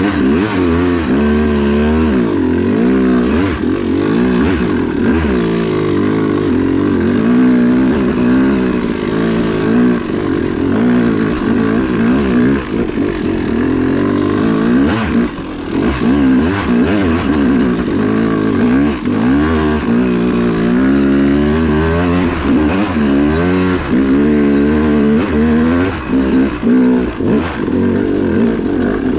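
2005 Yamaha YZ250 two-stroke dirt bike engine under load on a hill climb, revving up and down over and over as the throttle is worked. The revs drop off briefly around the middle and again near the end.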